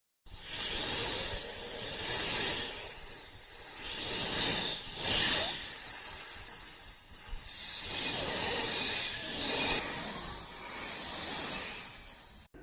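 Snake hissing: a long run of loud, airy hisses that swell and ease several times, then cut off suddenly near the end.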